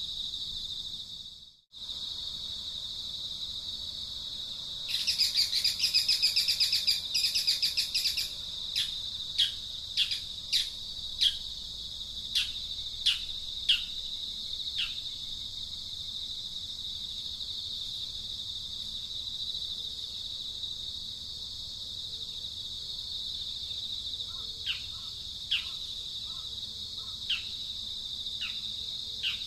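Steady high drone of insects with a bird calling over it. About five seconds in comes a burst of rapid chattering notes, then a string of sharp, falling chirps. More chirps follow near the end. The sound drops out briefly near the start.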